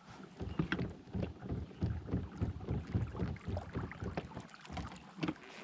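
Knocks, bumps and scrapes against a kayak and the gear in it, coming irregularly many times a second as the kayak is handled and shifted.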